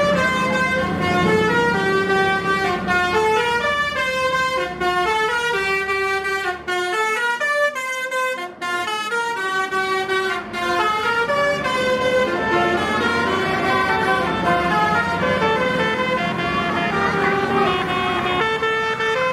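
Bus 'telolet basuri' musical air horn playing a melody: quick runs of stepped notes that climb and fall, with a short break near the middle.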